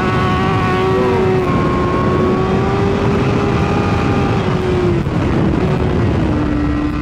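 2016 BMW S1000RR's inline-four engine running at high revs on track, heard over heavy wind rush. The note dips briefly about five seconds in, then falls slowly near the end.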